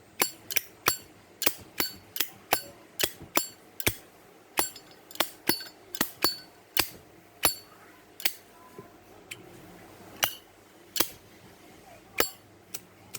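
Zippo lighter's metal lid clicking open and snapping shut over and over, each click with a short bright metallic ring. The clicks come two to three a second at first and thin out to a few scattered ones near the end.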